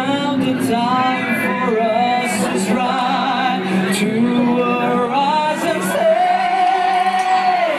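A male pop singer singing live into a handheld microphone over backing music, his voice carried by the PA; he holds one long note near the end.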